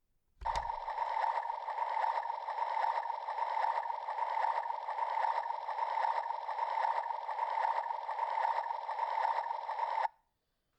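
Toy mixer switched on with a click about half a second in, then whirring steadily for about nine and a half seconds before cutting off abruptly.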